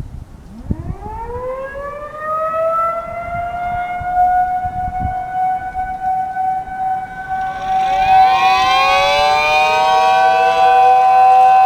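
Homemade 3D-printed mini ACA P10 tornado siren winding up, its pitch rising to a steady high tone. About seven and a half seconds in, a second set of siren tones rises in and settles into a chord with the first. Wind buffets the microphone at the start.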